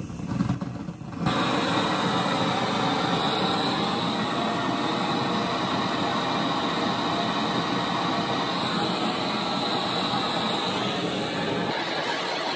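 Handheld butane-propane blowtorch lit: the gas starts to hiss, catches a little over a second in, then burns with a steady rushing hiss.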